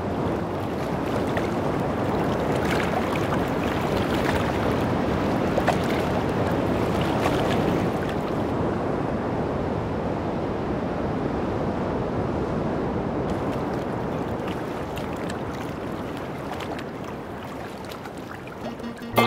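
Open-sea ambience: a steady wash of ocean waves, easing off a little near the end.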